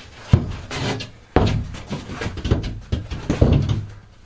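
A large plywood panel being forced into place against wall framing: a sharp knock about a third of a second in, then a run of heavier bumps and knocks as it is shoved in.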